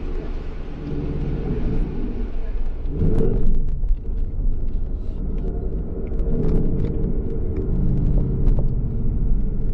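2018 Ford Mustang GT's 5.0-litre V8 running while driving, heard inside the cabin as a low rumble that swells a few times, with faint clicks now and then.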